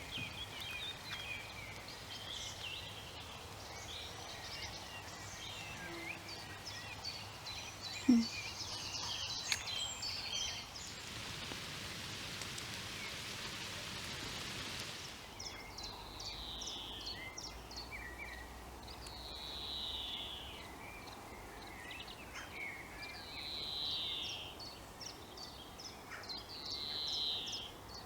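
Wild birds singing and chirping, many short high notes overlapping, with one bird repeating the same short falling call four times, about every three and a half seconds, in the second half. A few seconds of soft hiss come in the middle, and a single sharp click sounds about eight seconds in, the loudest moment.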